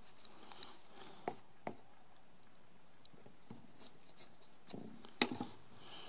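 Faint handling noises of plastic cups: a few light clicks and taps as a plastic hydroponic net cup is fitted onto a plastic kitchen cup and set down on a wooden bench, the sharpest tap about five seconds in.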